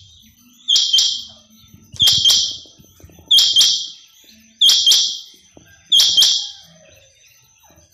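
Female common quail calling: five loud, high double-note calls, repeated evenly about every 1.3 seconds.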